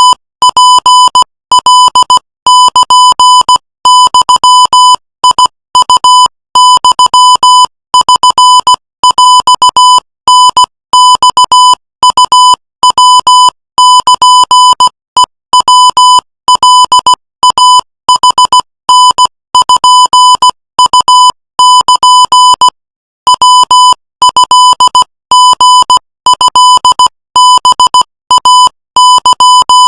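Morse code sent at 18 words per minute: a single high beep tone keyed on and off in rapid dots and dashes, with a short break about three-quarters of the way through.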